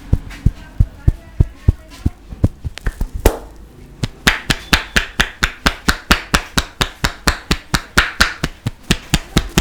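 Massage tapotement: a masseur's hands striking rhythmically on a person's head and body, first about three strikes a second, then after a short break faster and sharper, about five a second.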